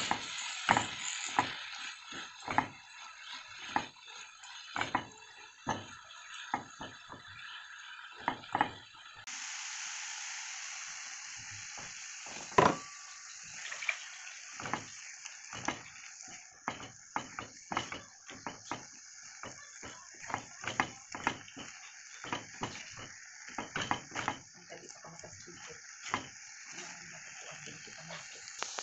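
Sliced bitter melon and beaten egg sizzling in a nonstick frying pan, with frequent short clicks and scrapes of a silicone spatula stirring them. There is one sharper knock about halfway through.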